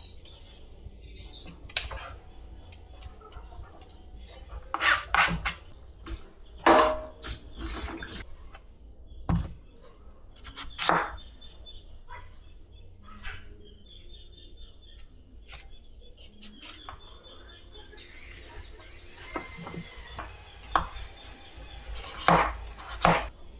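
Scattered knocks and clatter of household objects being handled, with faint bird chirps in the background.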